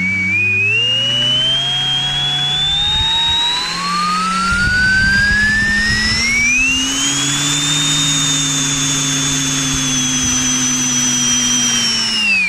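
Electric ducted fan of a 3D-printed model turboshaft spooling up: a whine that rises in pitch for about seven seconds, holds steady, then begins to fall at the very end as it winds down.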